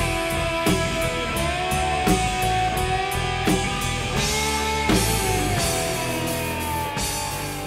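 Background rock music with sustained, bending guitar notes and a drum hit about every second and a half, getting quieter near the end.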